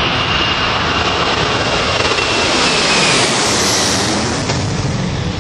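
Airplane engines running at takeoff power, a loud steady rush with a high whine that slowly falls in pitch partway through.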